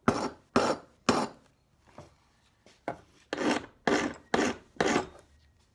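Hand scraping or filing on a brass scrap piece: short rasping strokes, three in quick succession, then a pause, then five more.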